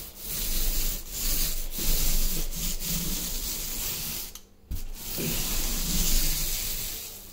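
Paint roller on an extension pole rolling wet paint onto a wall, a steady rubbing swish as it goes up and down, breaking off briefly about halfway through as the stroke turns.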